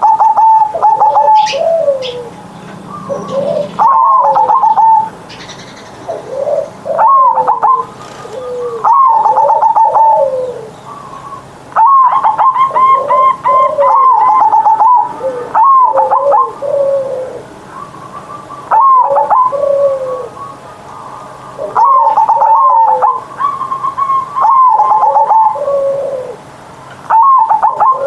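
Zebra dove (perkutut) singing its cooing song over and over, a phrase every two to three seconds. Each phrase is a quick stuttering run of short notes near 1 kHz that drops into lower, falling coos, the deep 'big voice' song prized in this bird.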